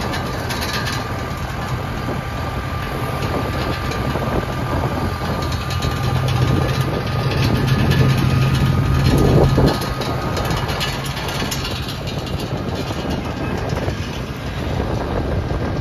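Vehicle engine running under way with steady road rumble. The drone grows louder over a few seconds and drops off suddenly about nine and a half seconds in.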